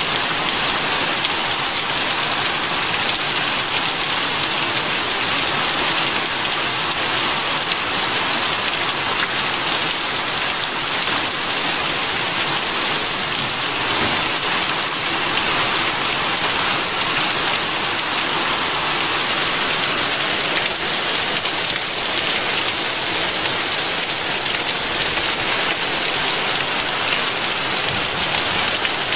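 Heavy rain mixed with hail pelting down on a street and pavement: a steady, dense hiss of drops and small hailstones striking hard surfaces, unchanging throughout.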